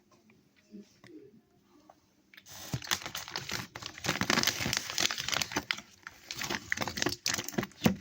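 A crinkly candy wrapper being handled and torn open. It starts about two and a half seconds in as dense crackling and crinkling that goes on to the end.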